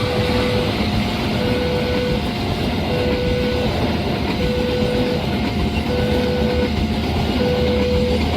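Railway level-crossing warning alarm sounding, an electronic signal alternating between a lower and a higher tone about once every second and a half, over the steady rumble of a passing train.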